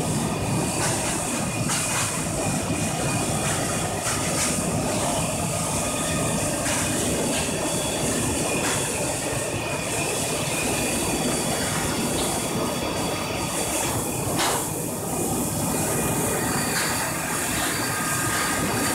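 Industrial jujube washing line running: wash water churning and hissing as air bubbles through it around the dates, over a steady mechanical drone from the machine and its mesh conveyor. There are a couple of brief knocks.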